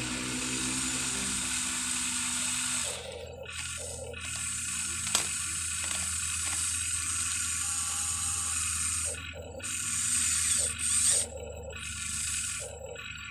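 Electric motors and gear drives of a HUINA 1593 RC excavator whirring in short runs, stopping and starting several times as its functions are worked. There is a sharp click about five seconds in.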